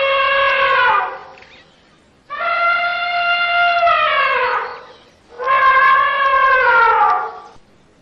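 African elephant trumpeting: a call already sounding ends about a second in, then two more long calls follow, each held steady and then dropping in pitch at its end.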